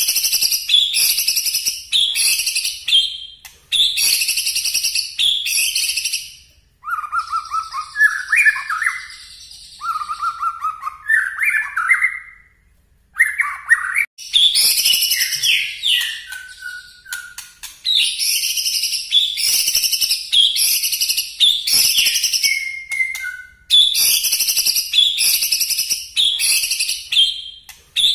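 Caged white-rumped shama (murai batu) singing loud, rapid bursts of sharp, high whistled phrases, the 'nembak' shooting song. About a quarter of the way in the bird switches for several seconds to lower, slower phrases, then returns to the high rapid bursts.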